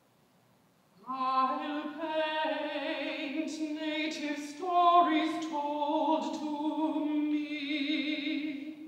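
Mezzo-soprano singing a phrase of a new classical art song, a few long held notes with vibrato, coming in about a second in after a silence.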